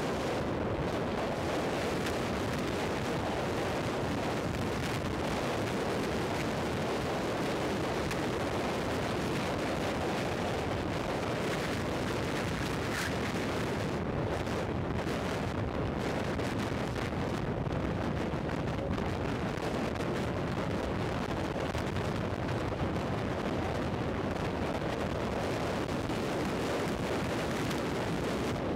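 Steady wind rush buffeting an action camera's microphone on a motorcycle at highway speed, with the Royal Enfield Thunderbird 500's single-cylinder engine running under it.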